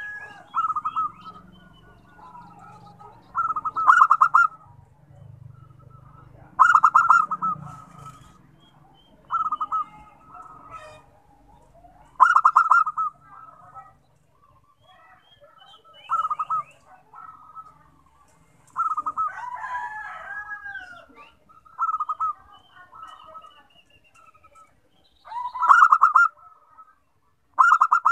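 Zebra dove (perkutut) singing its staccato, rapidly pulsed coo, repeated about every three seconds, with other birds calling faintly in between.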